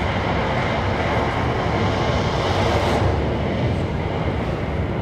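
Exhibition audio-visual recreation of the Mount Vesuvius eruption: a steady low rumble with no breaks.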